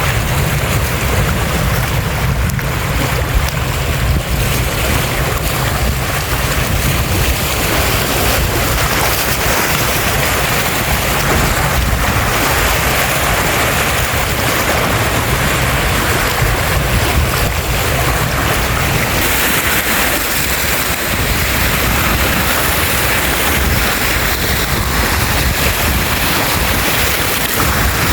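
Lake Michigan waves, a steady wash of water, with wind buffeting the microphone.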